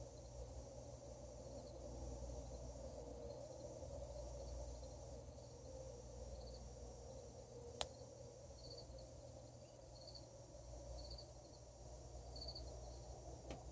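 A faint, steady unexplained drone with a low hum beneath it, heard at night, with short high cricket chirps repeating about once a second in the second half and a single sharp click about eight seconds in.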